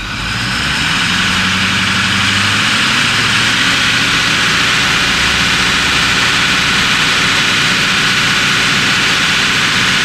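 Ford 6.4L Power Stroke V8 turbo diesel brought up from idle over the first couple of seconds, rising in pitch, then held at a steady fast idle of about 1,700 rpm for a cylinder power balance test.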